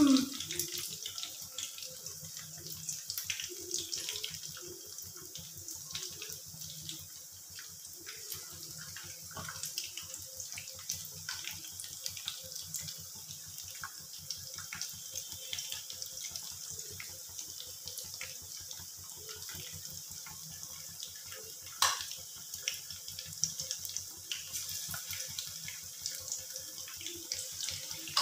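Marinated chicken pieces deep-frying in hot oil in a kadai: a steady sizzle dotted with small crackles and pops. One sharper knock comes a little after two-thirds of the way through.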